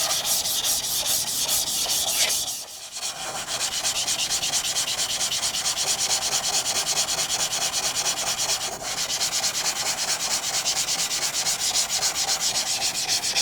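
Sakai Takayuki tall bunka knife blade rubbed back and forth in a wet slurry of 600-grit Suehiro stone powder on flat lapping glass. The strokes are quick and even, with a short pause about two and a half seconds in. This is the polishing step that evens out the blade's kasumi finish.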